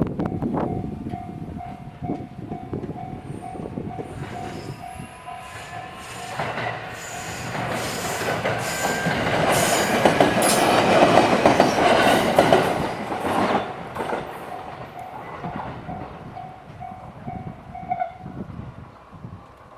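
Level-crossing alarm ringing in a steady run of repeated electronic dings while a train passes over the crossing. The wheels and rail clatter grow to their loudest about halfway through and then fade. The alarm stops shortly before the end.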